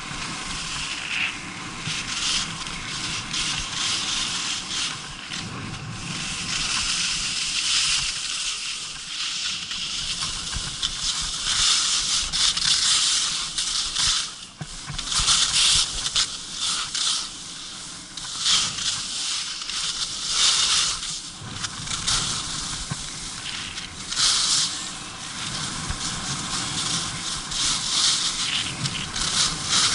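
Skis running and turning on hard-packed, scraped snow: the edges scrape and hiss, the sound surging with each turn every second or two.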